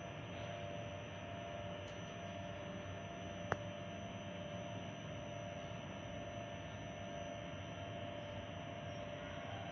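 Steady background hum and hiss, with two thin steady tones running through it and one sharp click about three and a half seconds in.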